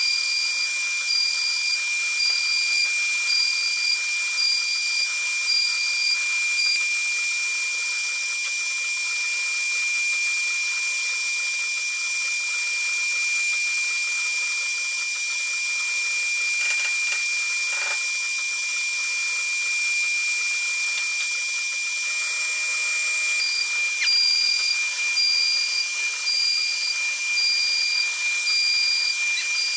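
HTM1325 CNC router's HQD spindle running at speed, a steady high-pitched whine over a hiss, as its bit carves a relief into an MDF panel. A fainter higher tone pulses on and off for the first several seconds and again near the end.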